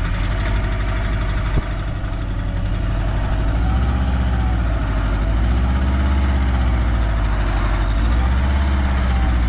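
Engine of a small canvas-topped off-road 4x4 running under load as it crawls up out of a ditch: a steady low drone, with the revs rising and falling several times from about four seconds in.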